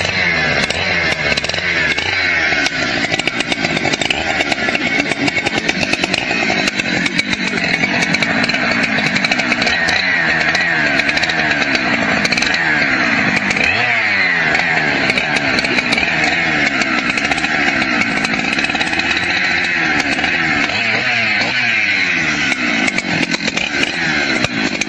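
Husqvarna chainsaw's two-stroke engine running continuously, its pitch rising and falling again and again as the throttle is worked.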